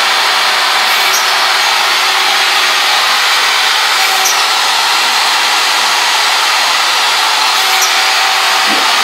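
Another machine running steadily: a loud, even hiss that does not change, with a faint hum beneath it. It is a little loud.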